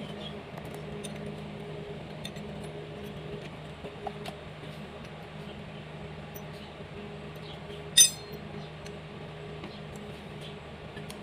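Small metal clinks and taps of a wrench and loose parts against the timing gears of a stripped Komatsu four-cylinder engine block, with one sharp, ringing metallic clink about eight seconds in. A steady low hum runs underneath.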